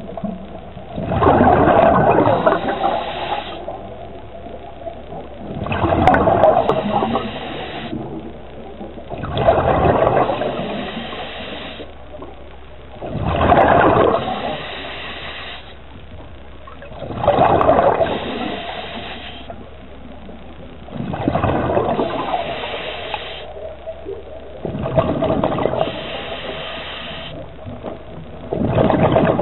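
Scuba diver breathing through a regulator underwater: a burst of exhaled bubbles gurgling and rushing past about every four seconds, with the quieter hiss of the regulator between breaths.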